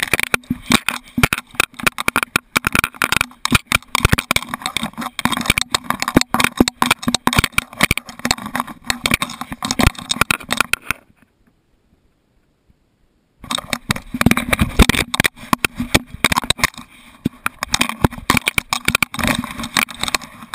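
Handling noise from a GoPro HERO2 camera strapped to a running dog: constant irregular knocking, scraping and rattling as the camera jolts and rubs with the dog's movements. It cuts out to near silence for about two seconds just past the middle.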